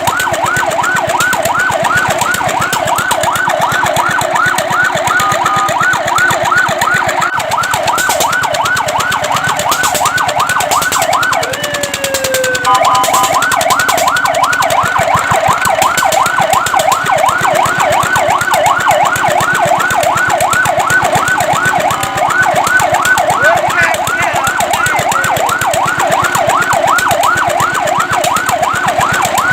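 Fire truck siren in a fast electronic yelp, its pitch sweeping up and down several times a second. About twelve seconds in it breaks briefly into one slower sweep before the fast yelp resumes.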